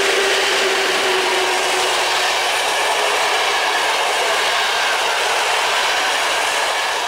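Electric passenger train passing close at speed: the EP07P locomotive and its coaches roll by with a loud, steady rush of wheels on the rails.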